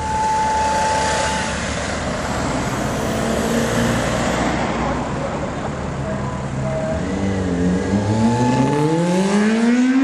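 Cars driving slowly past close by, with engine and tyre noise. Over the last few seconds one engine revs up, its pitch rising steadily.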